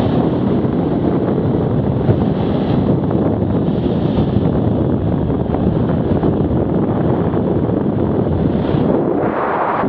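Heavy wind buffeting on the microphone of a fast-moving Arctic Cat 650 H1 ATV, with the quad's running noise mixed underneath; loud and steady.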